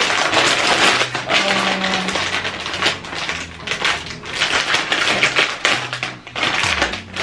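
Thin plastic packaging bags crinkling and rustling as they are handled and opened, in irregular crackly bursts.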